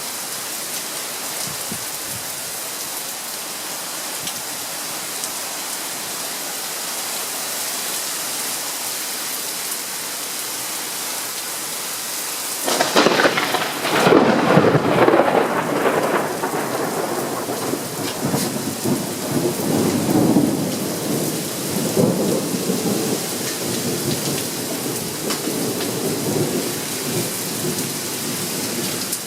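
Steady rain falls throughout a thunderstorm. About halfway through, a sudden loud thunderclap breaks out and rolls on as rumbling thunder for most of the remaining time over the rain.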